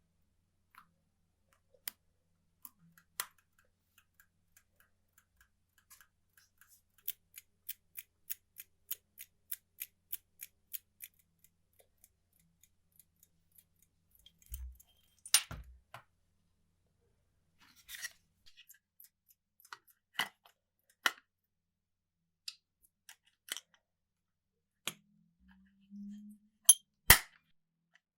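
Light metallic clicks and taps from an old alarm clock's parts being worked on by hand. A run of about ten evenly spaced clicks, roughly two and a half a second, comes in the middle, and a few sharper knocks fall in the second half.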